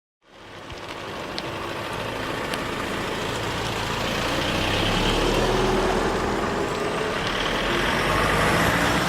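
A vehicle's engine running under a steady rushing noise, fading in from silence and growing louder over the first few seconds.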